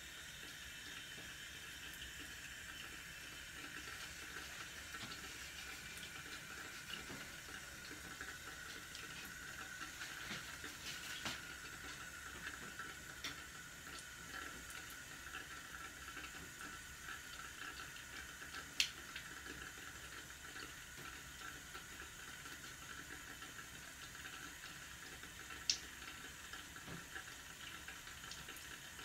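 Faint steady hiss of room noise in a small room, with two short sharp clicks, one about two-thirds of the way in and one near the end.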